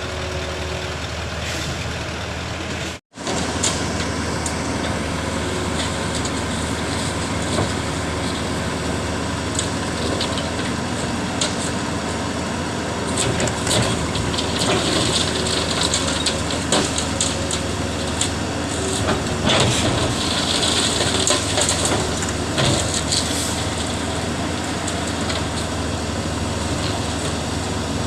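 A heavy diesel engine running steadily, with intermittent crunching and clicking over it through the middle of the stretch. The sound cuts out for an instant about three seconds in.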